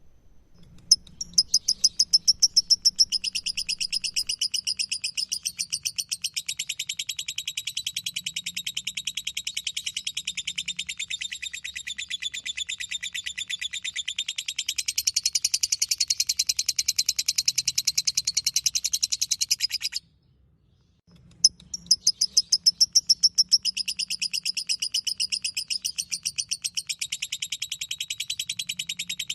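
Lovebird singing its long 'ngekek' song: a fast, unbroken chattering trill of high notes. The trill stops suddenly about two-thirds of the way through and starts again a second later.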